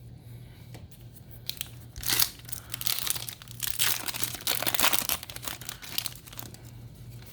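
Foil booster-pack wrapper crinkling and tearing in the hands in a dense run of crackles, loudest in the middle and dying away near the end.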